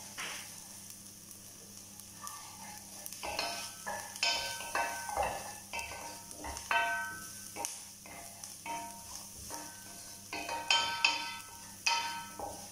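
Wooden spoon stirring onions and turmeric sautéing in butter and oil in an enamel pot, with a light sizzle underneath. From about 3 seconds in there are repeated scraping strokes against the pot, roughly one or two a second, each ringing briefly. The loudest strokes come near the end.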